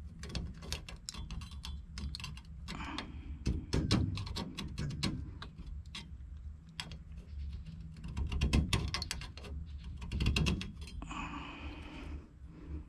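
Rapid, irregular light clicks and scrapes from close handling work, with louder clusters about four seconds in and again around eight to ten seconds, dying away near the end.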